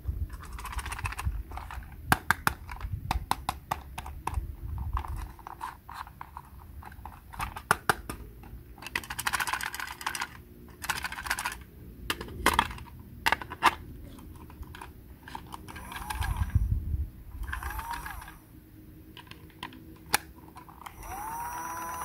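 Plastic clicks, taps and rattles of a small toy's battery compartment being opened and handled and an AA battery pushed into its spring contacts, in many short irregular bursts.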